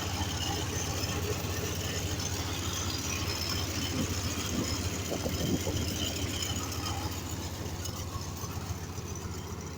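1995 Chevy's engine idling steadily with an even low pulse, growing a little fainter near the end.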